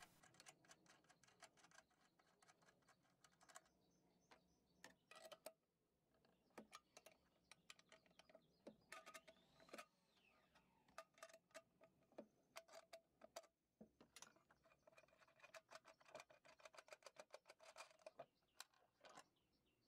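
Faint clicking of a 10 mm ratcheting wrench turning nuts off the jack-bracket studs, in several runs of quick ticks with short pauses between.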